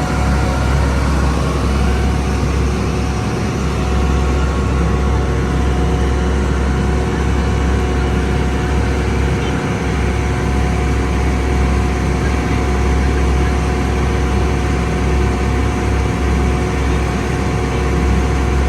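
Tour boat's engine running steadily under way, a constant low rumble with a faint steady hum above it.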